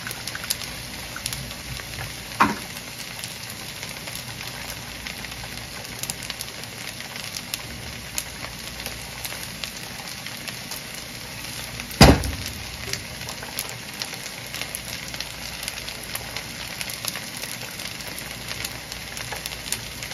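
Eggs and kimchi fried rice sizzling and crackling in a hot frying pan: a steady hiss speckled with small pops. A single sharp knock about halfway through is the loudest sound, with a softer thump a couple of seconds in.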